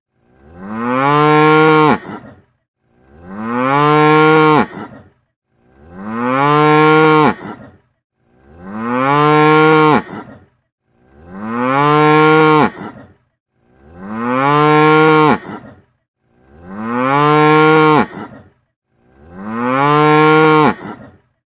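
A cow mooing: the same recorded moo repeated eight times at an even pace, each call rising in pitch and dropping off at the end, with short silences between.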